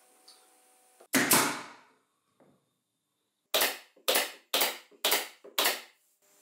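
Pneumatic nail gun driving nails into glued plywood strips: five sharp shots about two a second, each with a short air-release tail. About a second in there is one louder blast that dies away over most of a second.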